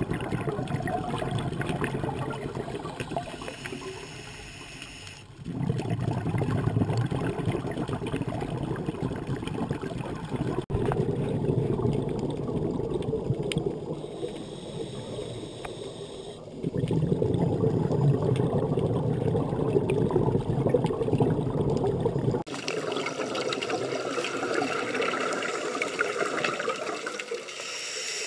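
Underwater rush and gurgle of scuba divers' exhaled regulator bubbles, in louder and quieter stretches that change abruptly several times.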